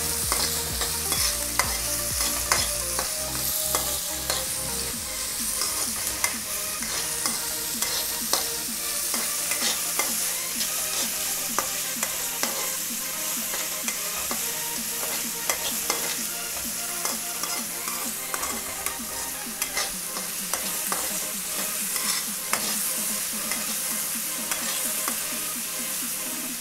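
Sliced onions sizzling in hot oil in a kadai while a metal spatula stirs them, with frequent scrapes and taps of the spatula against the pan over a steady hiss.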